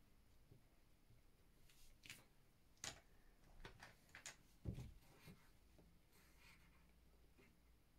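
Near silence broken by a few faint clicks of crayons knocking together in a plastic tub as one is picked out, with one soft low thump just before the middle.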